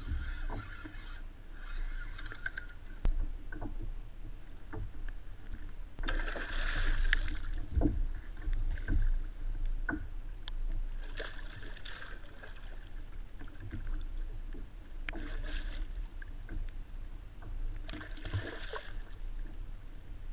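Choppy water washing and splashing against a kayak's hull every few seconds, over a steady low rumble of wind on the microphone, with scattered small knocks.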